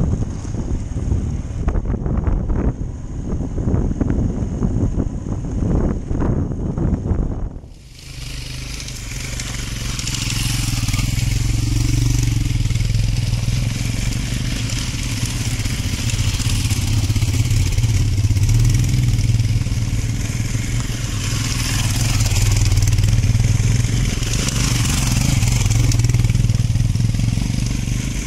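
Royal Enfield motorcycle ridden along a rough gravel track, heard from the rider's helmet: engine running under wind noise and rattle. About eight seconds in it cuts abruptly to several motorcycles climbing a stony track toward the microphone, their engines running steadily and growing louder as each one comes near.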